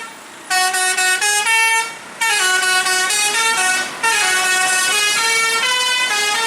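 Bus 'telolet basuri' musical horn playing a tune of held notes that step up and down in pitch. It breaks off briefly near the start and again about two seconds in.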